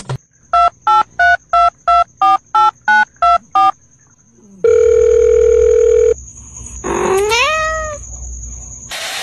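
Telephone keypad tones, about eleven quick two-tone beeps in a row, then one steady ringing tone lasting about a second and a half. Near the end comes a cat's meow rising in pitch.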